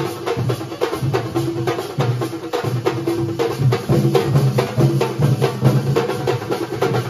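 Kerala thambolam percussion ensemble: large shoulder-slung bass drums and smaller drums beaten with sticks together in a fast, steady rhythm of dense strokes.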